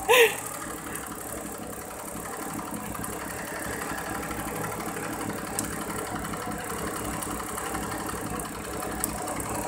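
1983 Daihatsu Charade's three-cylinder engine idling steadily.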